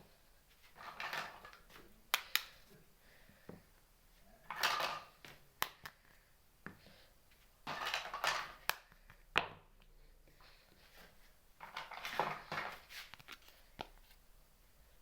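Miniature toy kitchen pieces being handled and set down: sharp clicks and taps, with four short bursts of rustling and scraping.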